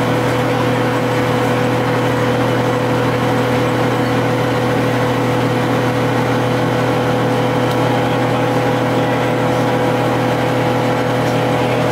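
GM TDH-5303 transit bus's two-stroke Detroit Diesel engine running at a steady engine speed, a constant drone with a steady whine and no change in pitch.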